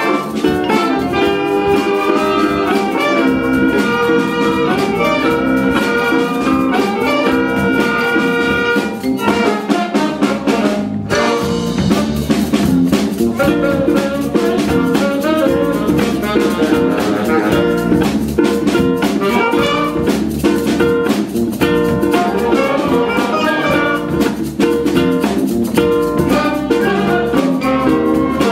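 Student jazz band playing: saxophones, trumpets and other brass over a drum kit, with a steady beat.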